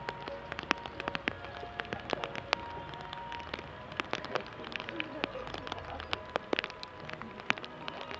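Rain falling, with many irregular sharp drop clicks close to the microphone, over faint music with held notes.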